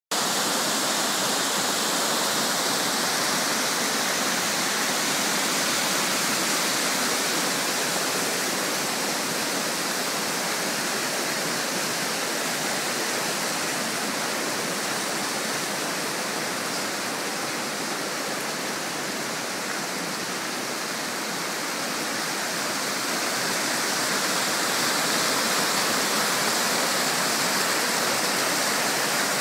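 Stream in flood spate rushing and cascading over rocks as white water, a steady, dense rushing noise that eases slightly midway and swells again near the end.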